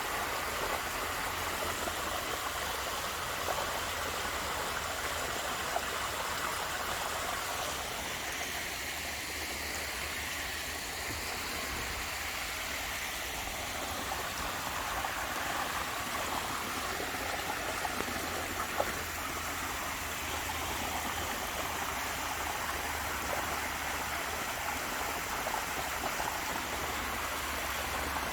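Steady rush of falling and flowing water from a small waterfall and stream, with a few faint ticks.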